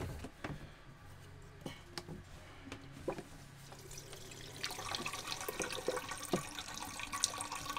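Fuel poured from a plastic jerry can to flush a fouled Racor fuel filter bowl, trickling and dripping into a plastic cup below. It starts with scattered small drips and knocks and becomes a busier splashing trickle about five seconds in.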